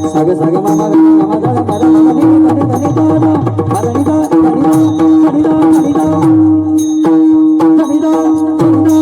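Marathi devotional bhajan music: a steady held drone note over tabla, whose bass strokes slide down in pitch, with bright ringing strikes keeping a steady beat.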